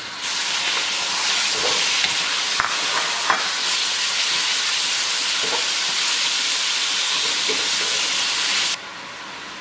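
Sliced pork sizzling hard in a hot wok of oil, caramelized sugar, garlic and chili as a wooden spatula stirs it, with a few scrapes against the pan. The sizzle starts right as the meat goes in and cuts off abruptly near the end.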